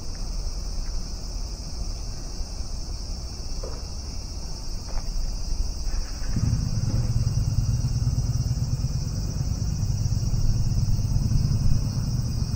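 Steady high-pitched drone of insects in the trees. About halfway through a loud low rumble sets in and continues.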